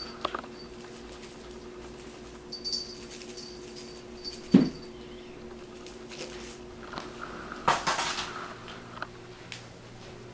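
Rustles and small knocks of hands playing with a kitten that chews at the fingers, with one louder thump about four and a half seconds in and a scuffle near eight seconds. Brief high squeaks come now and then over a steady low hum.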